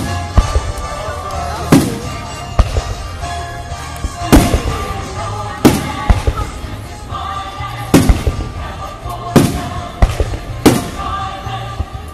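Aerial firework shells bursting overhead, a loud bang every second or two with smaller pops between, over music playing throughout.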